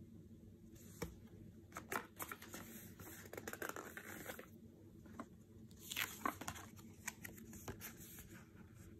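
Tarot cards being handled and flipped: card stock sliding, snapping and rustling, in two bouts with a few sharp clicks, about a second in and again around six seconds.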